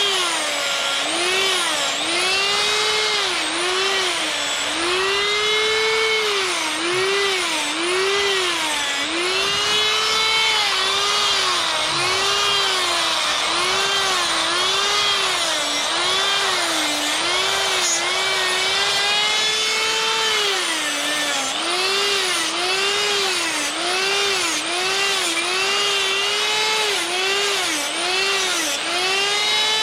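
Die grinder with a sphere burr carving wood, its high motor whine sagging in pitch each time the burr bites in and climbing back as it eases off, in quick repeated strokes about once or twice a second.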